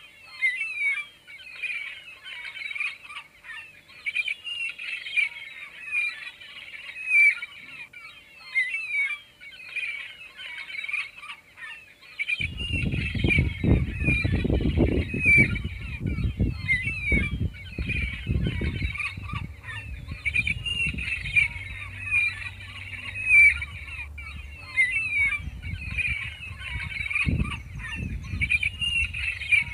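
Many birds calling over one another in a steady, busy chatter of short squawks and chirps. From about twelve seconds in, a low rumbling noise comes in under the calls and stays.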